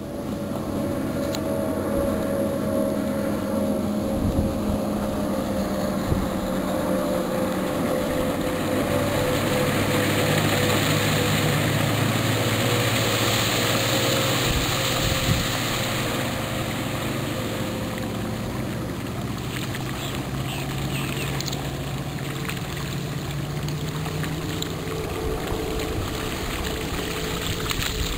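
90 hp Johnson outboard motor on a speedboat running steadily at speed, its pitch sinking slowly. A hiss of water swells and fades around the middle.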